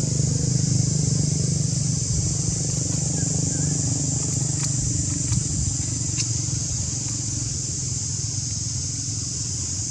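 An engine running steadily, slowly growing fainter, under a constant high hiss, with a few faint clicks about halfway through.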